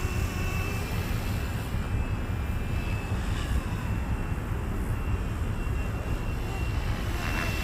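FW450 H1 electric 450-size RC helicopter flying at a distance: a thin, steady whine of its motor and rotors that swells and fades. Wind rumbles on the microphone underneath.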